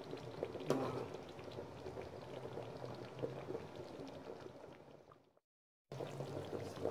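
Pot of banga (palm-fruit) soup bubbling on the fire, a steady simmer with many small pops. The sound fades and cuts out briefly near the end, then resumes.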